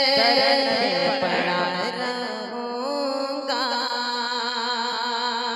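A man's voice singing a naat into a microphone, drawing a line out into a long melismatic passage whose pitch winds up and down.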